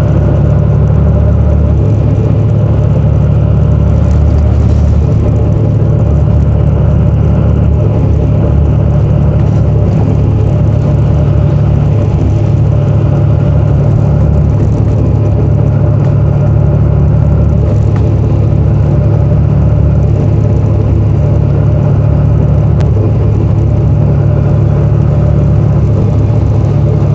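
City bus engine running and its road noise heard from inside the bus while it drives: a loud, steady low drone.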